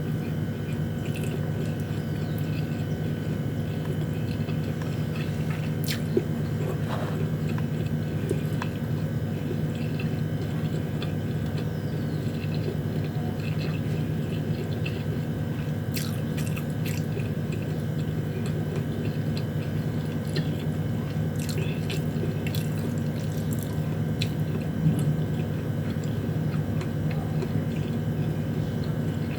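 Chewing and mouth sounds of someone eating sardines and rice, with a few faint clicks, over a steady low hum.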